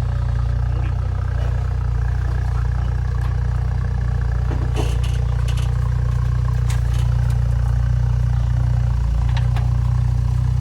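A vehicle engine idling steadily in a low, even drone, with a few light clicks and clatters about halfway through.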